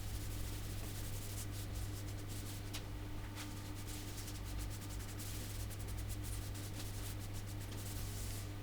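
Repeated, irregular rubbing strokes by hand on the wooden surface of a speaker cabinet, scratchy and high-pitched, over a steady low hum.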